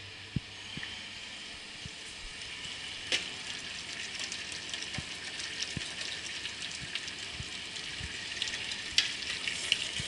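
Large aluminium pot of lamb sauté with white wine reducing on a gas burner, sizzling steadily, with a wooden spatula stirring and scraping. There are a few soft knocks near the start, and sharp clicks from the spatula against the pot near the end.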